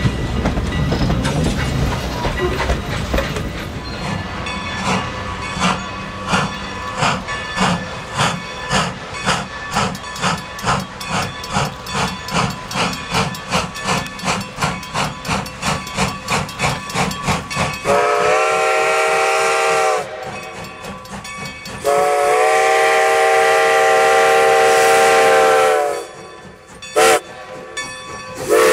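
Steam locomotive hauling a passenger train, its exhaust chuffing evenly about twice a second. Then the steam whistle sounds two long blasts, a short toot and the start of another long blast, the pattern of a grade-crossing signal.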